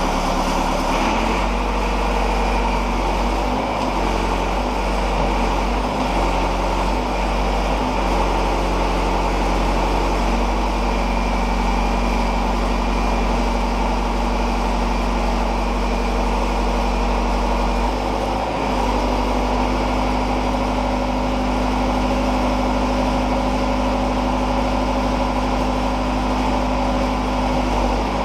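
JCB 214 backhoe's diesel engine running steadily while its hydraulics work a feller buncher head. The engine note shifts several times in the first eight seconds and again about 18 seconds in as the hydraulic load changes.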